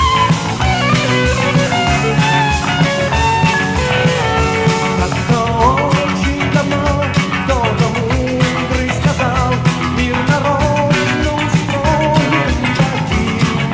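1980s Russian rock song playing, with a steady drum beat under the band.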